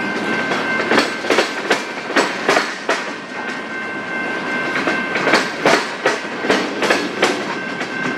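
Freight train cars rolling past, their wheels clicking over the rail joints in a steady clickety-clack of about two to three clicks a second, with a thin steady ringing tone underneath.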